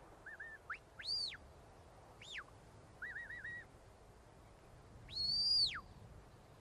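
Sheepdog handler's whistle commands to the working dog, a run of distinct signals: short repeated pips, quick high notes that rise and fall, and near the end one long held high note that drops away. The commands steer the dog to bring the sheep slightly to the right.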